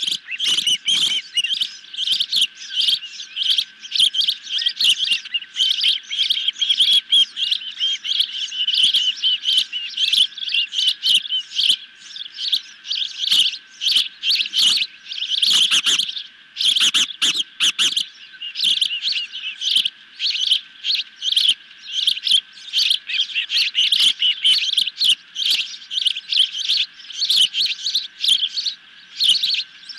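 Ospreys on the nest calling: a continuous run of rapid, high chirps repeated many times a second, with denser bursts around the middle.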